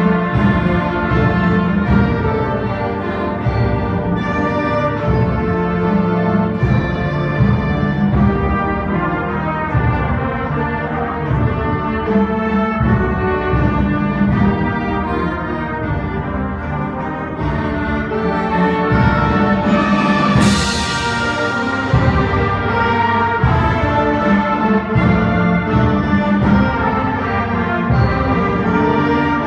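School concert band playing, full brass and woodwinds over low drum hits. A single crash rings out about two-thirds of the way through.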